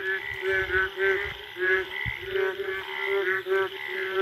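A breeding chorus of frogs calling after the first rain, with several kinds of call overlapping. A low note repeats over and over, and short, rapid higher-pitched calls come several times a second.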